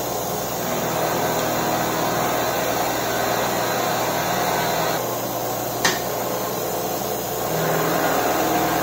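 Milling machine running as its cutter mills around a round boss on a metal part held in a machine vise: a steady machining drone with a high hiss. A single sharp click about six seconds in.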